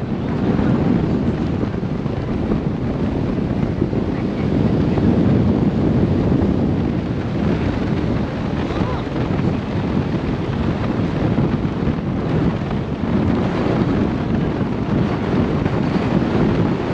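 Wind rushing over the microphone at the bow of a tour boat under way, a steady low rush over the noise of the boat moving through the water.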